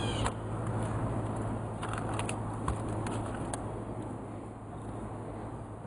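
Steady low hum from an air-conditioner outdoor unit, with a few faint clicks about two to three and a half seconds in. A cat's meow ends right at the start.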